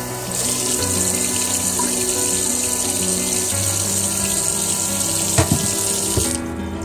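Water running from a tap in a steady hiss, shut off near the end, with a couple of short knocks just before it stops.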